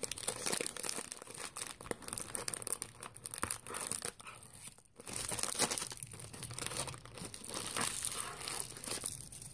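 Plastic snack wrappers crinkling and rustling as packets are handled and shifted in a box, with a brief lull about five seconds in.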